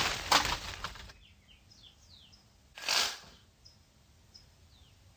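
Cartoon sound effect of a toy crashing down through bushes: a rustling crash with a sharp snap that fades within about a second. Then faint short chirps and one brief burst of noise about three seconds in.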